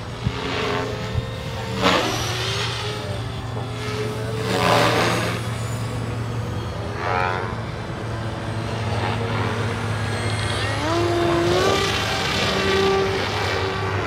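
Electric brushless motor and propeller of an RC flying wing (Turnigy L3010B-1300 with an APC 10x6 prop) droning in flight, its whine sliding up and down in pitch as throttle and distance change, with a clear rise about ten to eleven seconds in. A few louder rushing swells come through, the loudest about four to five seconds in.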